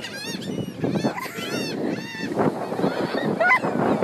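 A flock of gulls calling over and over, many short squawks overlapping, over a steady noisy rush.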